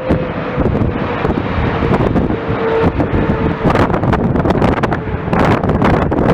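Heavy wind buffeting and crackling on the microphone, growing stronger after the middle, over the low rumble of jet airliner engines with a faint steady whine in the first half.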